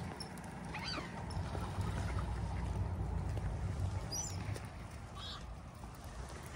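Waterbirds calling: a few short, high calls about a second in, around four seconds and just after five seconds, over a steady low rumble.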